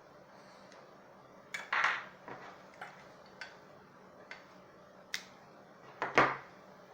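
Scattered clicks and clatters of small hard objects handled on a work surface, about eight short knocks over several seconds, the loudest near the end.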